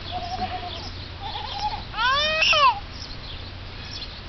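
A single loud bleat about two seconds in, its pitch rising and then falling over under a second, after two fainter short calls.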